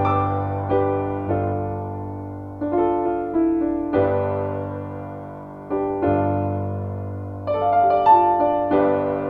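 Slow solo piano music, chords struck about once a second and left to fade over a low bass note.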